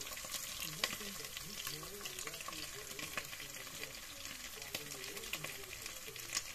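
Beef and tomato paste frying in a pot: a steady sizzle with scattered crackling pops.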